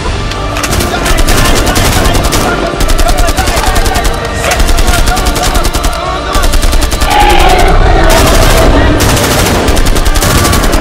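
Loud, rapid automatic-weapon gunfire sound effect, shots following one another many times a second in long continuous bursts.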